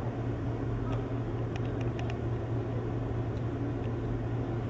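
Steady low rumble and hiss of outdoor background noise, with a few faint clicks about one and a half to two seconds in.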